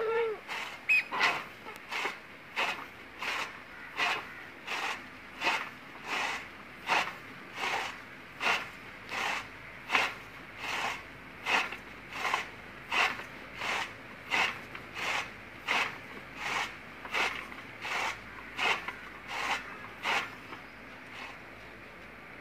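Hand-cranked toka chaff cutter: its flywheel blades slice through fresh jowar (sorghum) fodder stalks, one sharp swishing chop about every three-quarters of a second. The chops stop about 20 s in.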